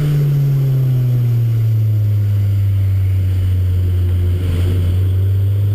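Car engine running on a race track lap: its note falls over the first two seconds, holds low and steady, then begins to rise again near the end.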